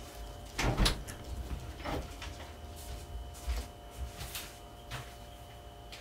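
A person moving about a room with a wooden floor: a handful of irregular knocks and thuds, the loudest about a second in, over a faint steady hum.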